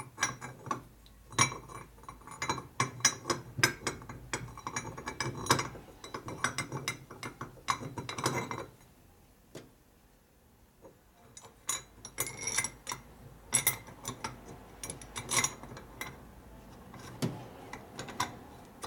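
Light metal clicks and clinks of Harley Shovelhead rocker arms and shafts being handled and fitted in their rocker box, in rapid irregular runs with a pause of about three seconds midway.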